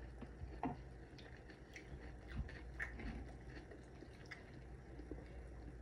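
Faint chewing of a raw mushroom dipped in guacamole, with a few soft clicks and light taps scattered through.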